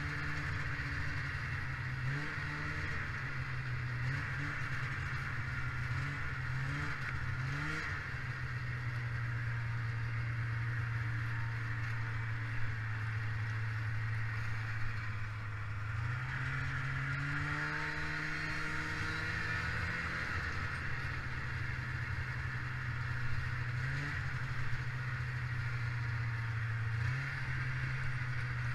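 1995 Polaris Indy 500 snowmobile's two-stroke twin engine running on the trail, its pitch rising and falling with the throttle. Several quick blips come in the first few seconds, then a steady stretch, then a rise about sixteen seconds in that eases off around twenty, with two more short blips near the end. A steady hiss runs underneath, with a few short knocks.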